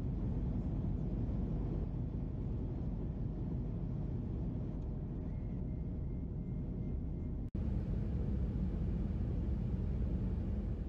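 Steady low rumble and rush of an Airbus A340-600 airliner cabin in cruise flight, engine and airflow noise, which cuts out for an instant about seven and a half seconds in.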